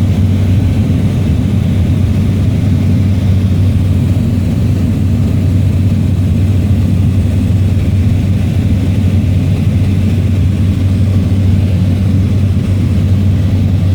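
Propeller aircraft engine in flight, a loud steady low drone that holds unchanged throughout.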